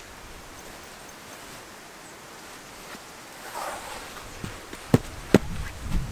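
A camper moving around at a tent: a brief rustle of tent fabric, then two sharp knocks close together and low footstep thuds near the end.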